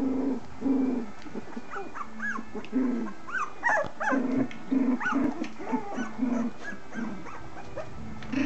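Young puppies play-fighting, with short low growls again and again and many brief high squeals and yips mixed in.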